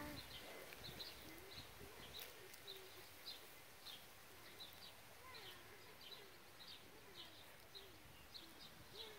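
Faint birdsong: a small bird repeating short, high chirps, about two a second, against quiet outdoor air.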